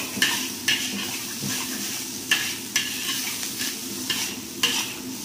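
Seafood stir-fry sizzling in a wok in its oyster-sauce liquid while a metal spatula stirs and scrapes, clinking against the pan about twice a second.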